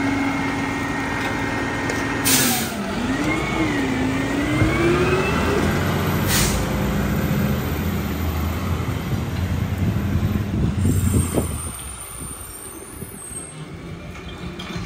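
Mack LEU garbage truck's air brakes releasing with a sharp hiss about two seconds in, a second shorter hiss a few seconds later, and its diesel engine rising and falling in pitch as the truck pulls away, growing fainter near the end as it moves off.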